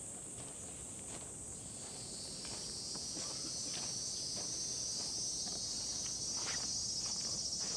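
A chorus of cicadas in the park trees: a steady, pulsing high buzz that drops somewhat in pitch and grows louder about two seconds in. Irregular light footsteps on dry ground sound under it.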